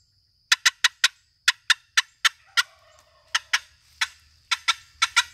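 Wooden long box turkey call patted paddle-on-rail to cut: about seventeen sharp, short clucks in uneven, quick groups, the cadence of a turkey's cutting.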